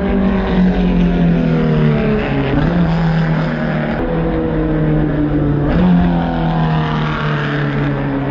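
Formula One car's engine running at a distance, a loud steady note whose pitch sinks slowly and jumps back up abruptly a few times.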